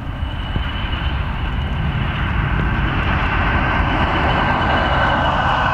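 English Electric Class 40 diesel-electric locomotive running light engine. Its 16-cylinder turbocharged diesel gives a low rumble under a steady high turbocharger whistle, growing louder as it approaches.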